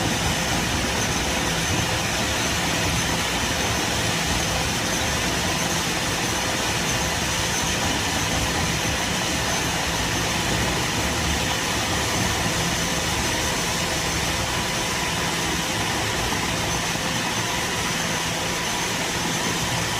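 Stone-crushing and screening plant running steadily: a constant, unchanging mechanical din with a low hum underneath.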